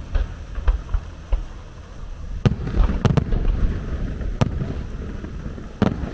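Aerial fireworks shells bursting: sharp bangs over a low rumble, scattered, with several in quick succession about halfway through.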